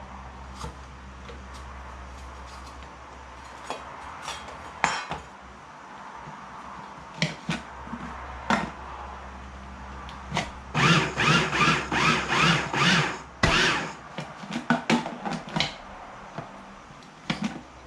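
Kitchen clatter: scattered knocks and clicks of utensils and the food processor being handled, with a dense run of rapid knocks about eleven seconds in.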